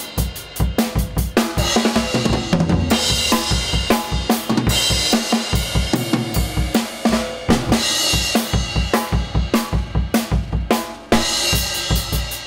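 Acoustic drum kit being played in a steady, busy groove: kick drum, snare and a constant wash of cymbals and hi-hat.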